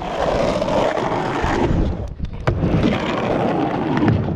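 Skateboard wheels rolling back and forth across a three-foot mini ramp, a steady rumble that fades briefly a little past halfway, with one sharp clack of the board about two and a half seconds in.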